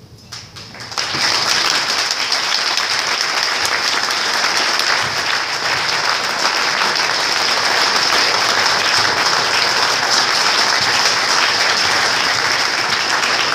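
Audience applauding, starting about a second in and then holding steady and loud.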